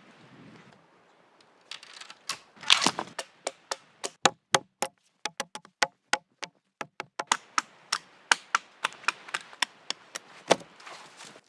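A run of sharp, irregular knocks and cracks, about two to four a second, starting about two seconds in and stopping near the end.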